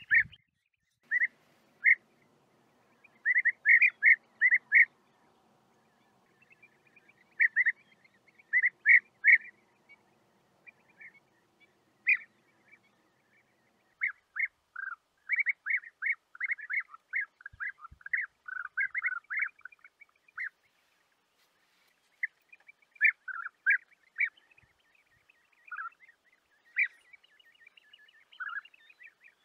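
European bee-eaters calling: many short calls in quick clusters, with short gaps between the runs, densest around the middle.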